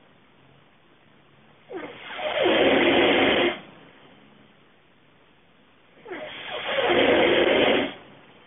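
A man snoring in his sleep: two loud snores about four seconds apart, each lasting about two seconds, starting softer and building to a harsh rasp.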